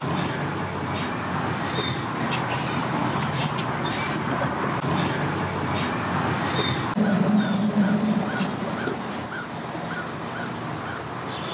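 Steady outdoor engine noise from the ramp, with a low engine hum rising for a moment about two-thirds of the way through. Over it run short high falling chirps, repeating every half second or so.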